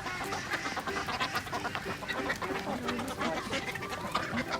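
Ducks and other farmyard fowl calling, over a busy scatter of short clicks.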